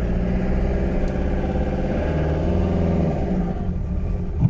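Talbot camper van's engine heard from inside the cab, revving as the van pulls away in first gear, then easing off for the change into second. A short low clunk near the end comes as the gear goes in, a slight gearbox noise the owner puts down to an old, worn gearbox.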